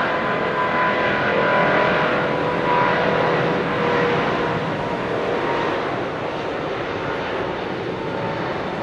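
Airbus A380's four turbofan engines running at takeoff power during the takeoff roll: a steady jet roar with a high whine from the fans, easing slightly in loudness in the second half.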